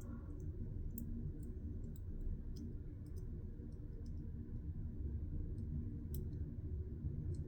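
Scattered, irregular light clicks of a small screwdriver and metal knife parts being handled while working the knife's small screws, over a low steady hum.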